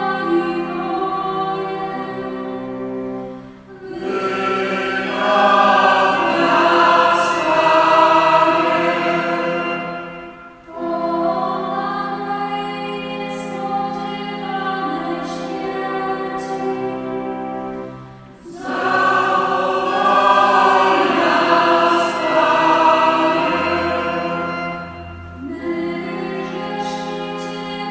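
Choir singing in long phrases over held electronic organ chords, with brief dips between phrases.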